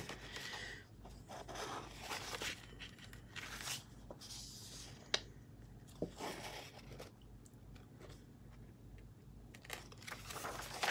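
Thin paper pages of a softcover colouring book rustling and swishing as they are turned and flexed by hand, with two sharp clicks about halfway through.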